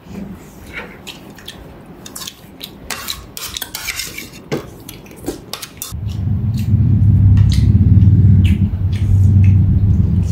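Spoons and forks clinking and scraping against plates and bowls during a meal. About six seconds in a loud, low rumble comes in and holds, louder than the clinking.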